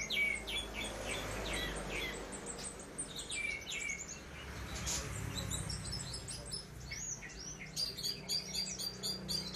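A caged songbird singing: a varied string of short chirps and whistled notes, turning into a quick run of sharp chirps near the end.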